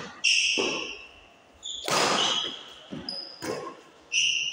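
Badminton rally: rackets striking the shuttlecock with sharp cracks, several times, each ringing on in a large echoing hall, with high squeaks of shoes on the court floor about a third of a second in and again near the end.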